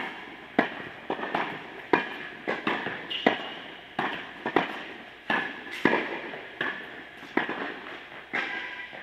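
Tennis ball struck by a racket and bouncing on an indoor hard court during a rally: over a dozen sharp pops, roughly one every half second to second, each echoing in the court hall. A brief high squeak about three seconds in.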